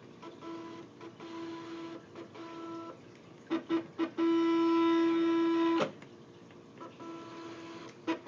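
Cricut cutting machine's stepper motors whining in short start-stop runs at one steady pitch as the carriage drives a Sharpie pen across the paper, drawing a box. The longest run stops about six seconds in with a sharp click.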